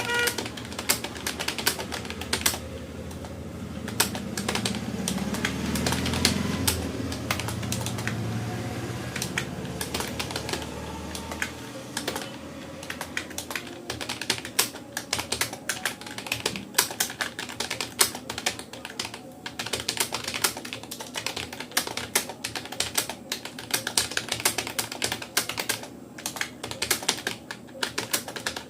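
Rapoo computer keyboard being typed on fast, a rapid, uneven run of key clicks with a short lull about three seconds in. A low rumble rises underneath from about four seconds in and fades out about twelve seconds in.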